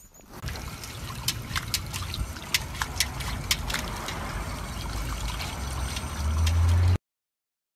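Water trickling in a pet drinking fountain while a golden retriever puppy paws and splashes at it, making many quick sharp splashes over a low hum. The hum swells near the end, then the sound cuts off abruptly.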